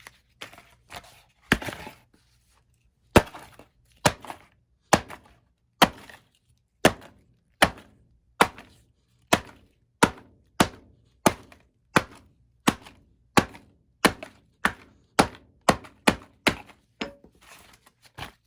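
A hammer striking cardboard packaging over and over, about twenty sharp thuds at a steady pace of roughly one every 0.7 seconds, with a few lighter knocks at the start.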